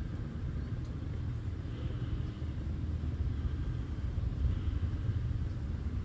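Volkswagen Golf R test car's turbocharged 2.0-litre four-cylinder running at low revs as the car rolls slowly through a bend, a low, steady rumble.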